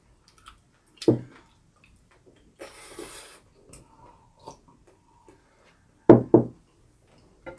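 Quiet mealtime sounds at a table: scattered light taps and clicks of a spoon and chopsticks on ceramic bowls, a sip of water from a glass, and two short vocal sounds about six seconds in.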